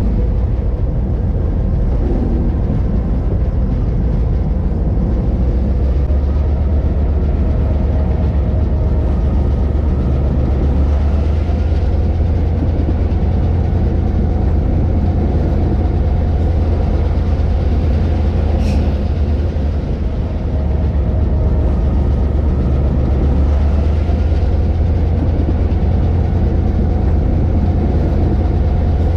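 Train moving along the track, heard from on board: a steady low rumble, with a single sharp click about two-thirds of the way through.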